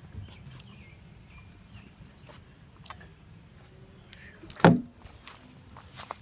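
Scattered light clicks and knocks over faint background noise, with one loud, short thump about four and a half seconds in.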